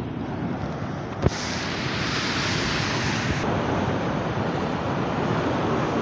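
Sea waves surging and breaking against a rocky shore, with wind buffeting the microphone. There is one sharp click a little over a second in.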